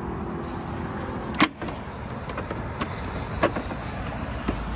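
A folding ramp being unfolded and laid on pavement: one sharp clank about one and a half seconds in, then a few lighter knocks, over a steady vehicle engine hum.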